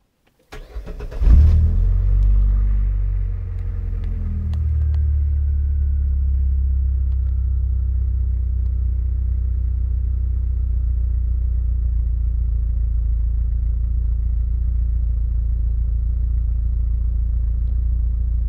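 Car engine cranked by the starter for under a second, catching with a brief flare of revs, then settling within a few seconds to a steady idle. A faint high whine slides a little lower as the idle settles and then holds steady.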